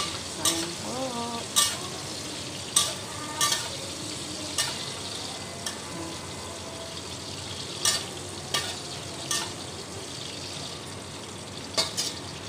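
Squid rings and curry leaves deep-frying in hot oil in a metal wok, with a steady sizzle. A metal spatula scrapes and clicks against the wok several times as it stirs them.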